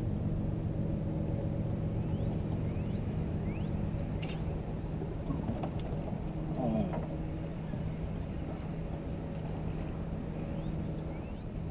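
A boat's outboard motor running with a steady low hum, and one sharp click about four seconds in.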